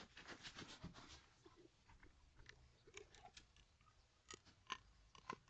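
Near silence broken by faint scattered clicks and taps from a person handling things close by, a little more frequent toward the end.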